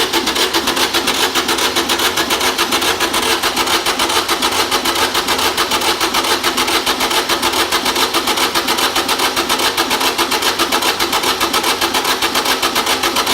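Kubota B7100's three-cylinder diesel being turned over by its starter motor, a fast even chugging that never catches or fires: the engine cranks and cranks but won't start, although fuel is reaching all three injectors.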